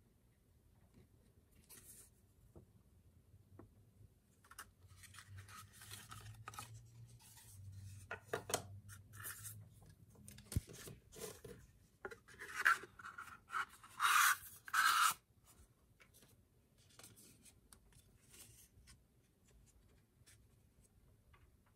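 Paper and cardboard being handled: a sticker sheet, photo cards and a small card box rustling, sliding and scraping against each other, with a run of louder rubbing scrapes around the middle.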